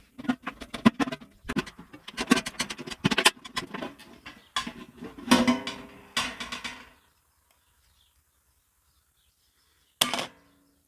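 Old kitchen scissors snipping and crunching hard through tough material in a quick run of cuts, with a few squeaks, stopping about seven seconds in. A short noise comes just before the end.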